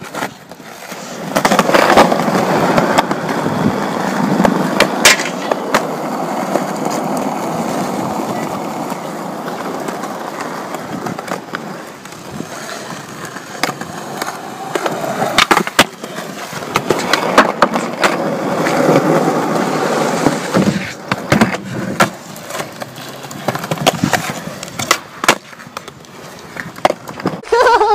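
Skateboard wheels rolling over rough concrete in two long runs, with sharp clacks and slaps of the board striking the ground between them.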